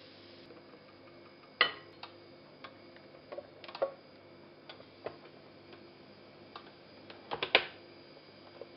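Sharp plastic clicks and knocks from a SilverCrest electric waffle maker as its lid is lowered over the batter and its handle latched shut. The loudest click comes about a second and a half in and a quick cluster of clicks near the end, over a faint steady hum.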